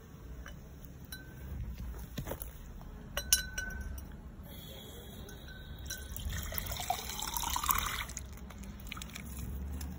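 Water from a garden hose running into a glass jar, its pitch rising steadily as the jar fills, for about two seconds past the middle. A few light clinks come a couple of seconds earlier.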